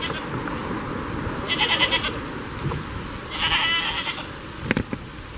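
Goat bleating twice, each a wavering call well under a second long, about a second and a half in and again about three and a half seconds in. Two short, sharp knocks follow near the end.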